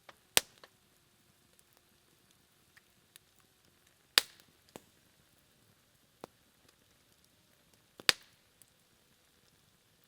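Low campfire burning down to embers, with three loud sharp pops about four seconds apart among a few faint crackles and ticks. A faint thin whistle fades out just before the second pop.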